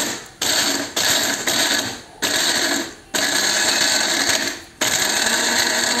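Electric blender grinding whole rice-field crabs to a paste, run in pulses: the motor starts abruptly, spins, and winds down, about six times, with the later runs lasting longer.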